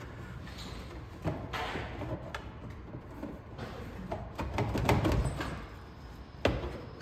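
Parts being handled during truck interior work: a few separate knocks and clunks with scraping and rattling between them, the sharpest knock near the end.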